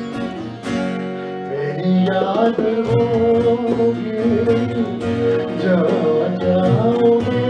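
A live ghazal performance: a man's singing voice comes in about two seconds in over sustained harmonium chords, with electric guitar accompaniment.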